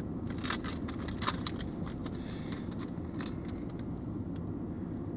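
Wrapper of a pack of hockey cards crinkling and tearing as it is opened by hand, a quick run of crackles over the first three seconds or so, then fainter handling. A steady low rumble of the car cabin runs underneath.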